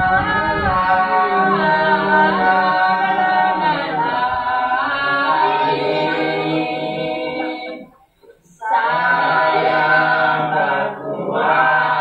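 A group of people singing together without instruments, holding long notes. The singing stops briefly about eight seconds in, then starts again.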